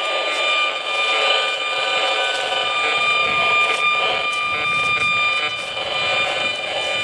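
Gigahertz Solutions HF35C RF meter's loudspeaker giving a dense, steady buzz with a high whine on top: its audio rendering of the pulsed microwave signals from a cell tower. The owner takes the near-continuous buzz for almost constant radiation from the tower.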